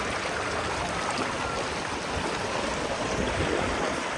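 Steady rushing of a fast-flowing river current over stones.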